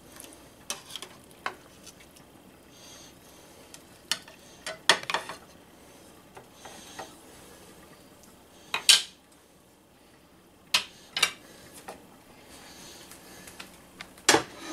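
A wooden spatula and a metal fork scraping and knocking against a stainless steel pot and a ceramic plate while a braised pot roast is lifted out of its broth. The clinks come at irregular intervals, and the loudest is just before the middle.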